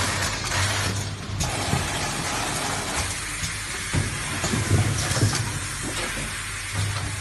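Packaging machinery running: an automatic case erector and carton sealer line with a steady low hum, a hiss in the first second or so, then scattered knocks and rattles as a carton rides along the roller conveyor.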